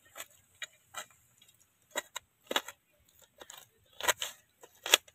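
Kitchen knife chopping onions on a steel plate, the blade striking the metal in short, sharp, irregular clicks, about a dozen over the few seconds.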